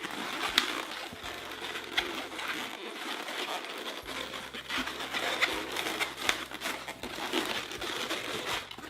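Inflated 260 latex modelling balloon being twisted and handled: rubbery rubbing and squeaking, with a few sharper squeaks along the way.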